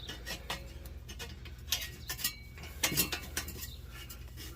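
Scattered light metallic clinks and taps of exhaust pipe and clamp hardware being handled and fitted, a few sharper ones about halfway through.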